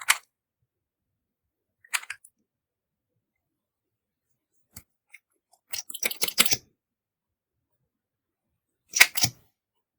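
Four short bursts of sticky crackling and clicking from clear slime and cosmetics being worked by hand. The longest burst comes about six seconds in and the loudest near the end.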